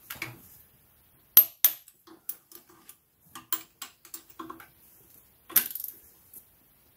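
Metal hand tools clicking and clinking against metal parts: a string of sharp clicks and knocks, two loud ones about a second and a half in, and a short rattling clatter near six seconds.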